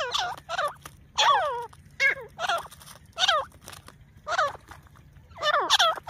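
Grey francolin (teetar) calling: a run of loud notes, each sweeping down in pitch, repeated about every half second to a second, with a brief pause past the middle.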